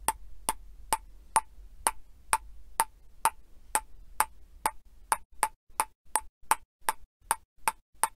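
A short click sound effect repeated about twice a second, around twenty clicks in a row, each marking a letter of animated on-screen text popping in; the clicks come slightly faster near the end.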